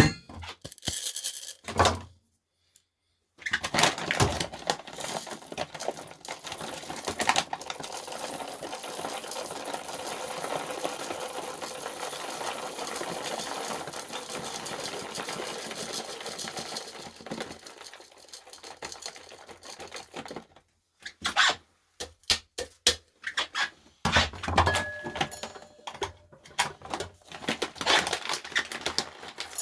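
Coffee grinder grinding beans with a dense, continuous rattling whir that tails off near the end of its run, followed by scattered clicks and knocks of handling equipment.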